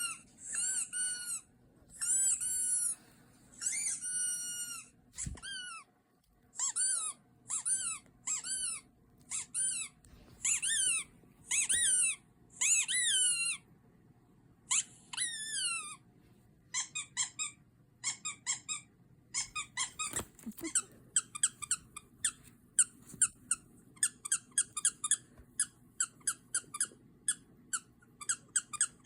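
A series of high-pitched squeaks. They are long, curving squeaks at first, then from about halfway on rapid short squeaks, several a second.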